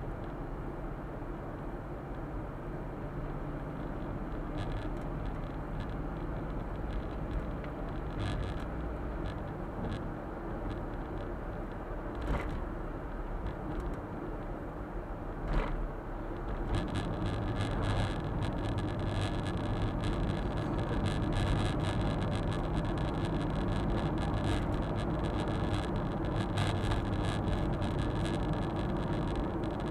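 Suzuki Super Carry kei truck driving, its engine and tyre noise heard as a steady drone inside the cab. A couple of short clicks come in the middle, and about halfway through the road noise turns louder and hissier.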